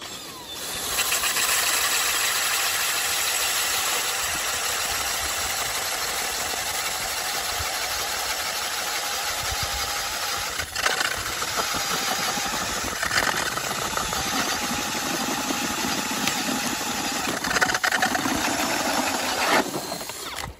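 Powered ice auger boring a hole through lake ice, running steadily as it cuts. It starts about a second in and stops shortly before the end.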